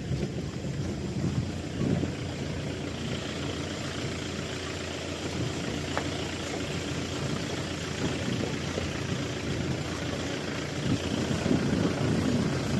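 A vehicle engine running steadily, with a low rumbling noise.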